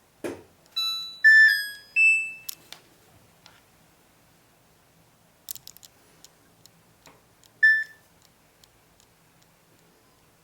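Electronic beeps from a Samsung Grande AI washer-dryer's control panel. After a soft thump, a short melody of four beeping notes rises in pitch, then come a few light clicks and one short single beep about eight seconds in.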